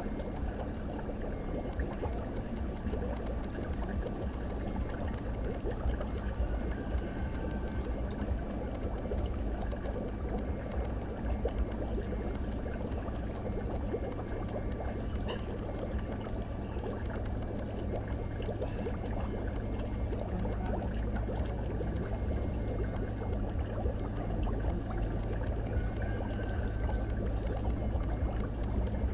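Aquarium water circulating: steady bubbling and trickling, with a faint steady hum underneath.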